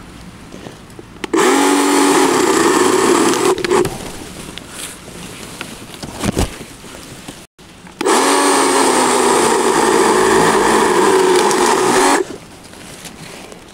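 Power saw cutting into a young maple tree in two runs, about two and four seconds long. Each run starts abruptly with the pitch rising and cuts off sharply when the saw is released.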